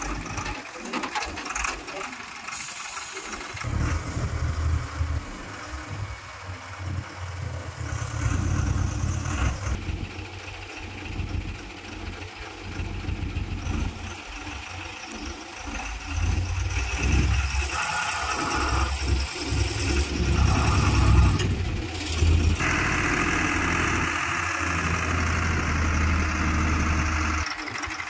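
A mobile crane's diesel engine running and revving up and down under load as it works on recovering an overturned truck, with a steadier higher whine over the last few seconds. People are talking.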